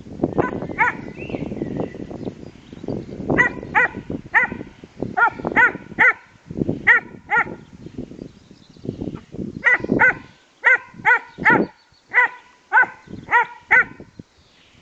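German Shepherd dogs play-fighting over a toy: low growling, then a long series of short, high-pitched barks in quick clusters of two to four, with brief pauses between.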